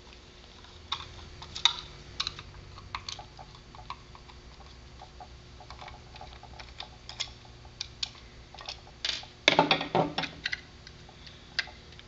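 Irregular small clicks and taps of a handheld plastic electronics enclosure being unscrewed and opened with a small screwdriver, with a louder clatter about nine and a half seconds in.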